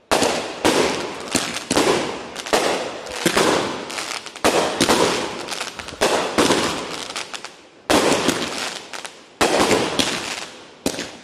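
Multi-shot consumer firework cake firing shot after shot, roughly one sharp bang every half second to second. Each bang dies away into a crackle of the bursting stars before the next one, with a short gap about eight seconds in.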